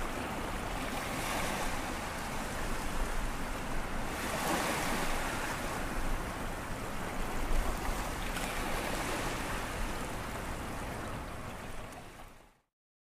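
Low sea waves washing in over a flat sandy beach and rocks: a steady surf wash that swells every few seconds, fading out to silence near the end.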